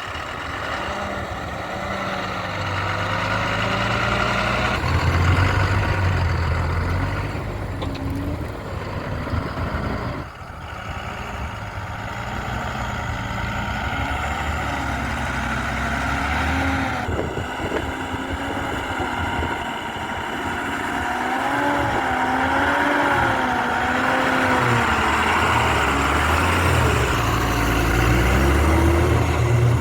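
Heavy diesel machinery working, its engine pitch rising and falling again and again under changing load, with a low, steady rumble underneath.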